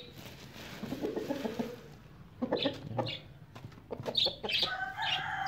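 Chickens clucking in a series of short calls, growing louder about halfway through, with a longer drawn-out call starting near the end.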